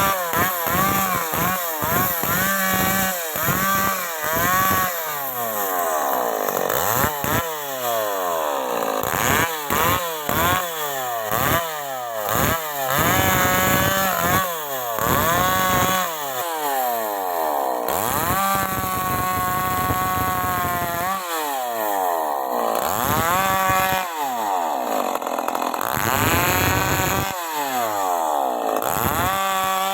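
Stihl MS 381 two-stroke chainsaw cutting timber. The engine revs up and down again and again, with quick blips early on and a longer stretch held at high speed about two-thirds through.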